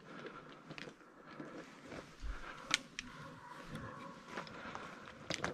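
Quiet rustling and scattered crackles of dry leaf litter and twigs being moved through in woodland undergrowth, with a sharper snap about two and a half seconds in and another near the end.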